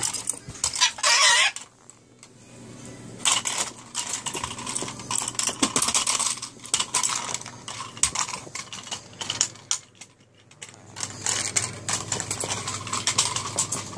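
A cockatoo knocking a plastic toy truck about on the floor: a long run of light, irregular clattering, clicking and rattling, with a short, loud, harsh burst about a second in and a brief lull near the two-thirds mark.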